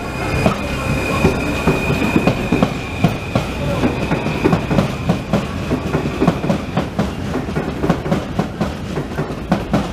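Paris Métro train running past and away, its wheels clattering over rail joints in a quick, uneven run of clicks, with a thin high steady whine that fades out about seven seconds in.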